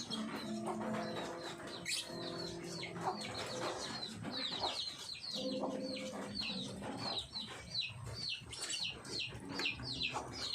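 Lovebirds chirping: a steady run of quick high-pitched chirps, each sliding down in pitch, coming thickest about halfway through and again near the end.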